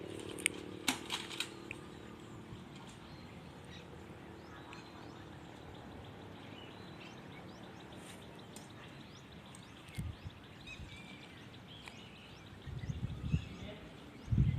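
Quiet outdoor background with faint bird chirps. A few sharp snaps come in the first second and a half, and there are muffled low thumps and rustling near the end.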